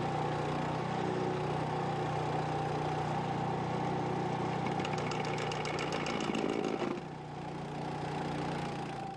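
Honda 6.5 hp single-cylinder engine of an E-Z Trench 9100 Groundsaw mini trencher running steadily under load while its carbide-tipped blade cuts a trench. About five seconds in, a rapid rattle joins it as the blade chews through a buried 2x4, throwing wood chips, and the sound drops about seven seconds in.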